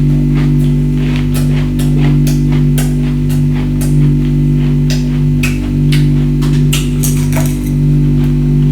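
Ice being bitten and crunched close to the microphone, a quick irregular run of sharp crunches, over a loud steady low hum.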